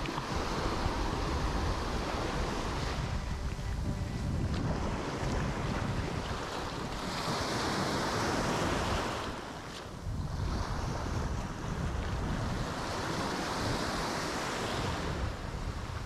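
Small waves breaking and washing up onto a sandy beach in surges that swell and fall back, the biggest about halfway through and near the end, with wind rumbling on the microphone.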